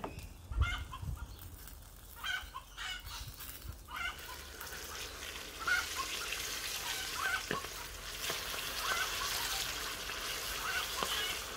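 Hot oil sizzling in a deep pot as floured chicken drumsticks are lowered in with tongs for deep-frying; the sizzle builds up from about four seconds in and stays steady after that, with a couple of sharp metal ticks from the tongs. Short bird calls in the background in the first few seconds.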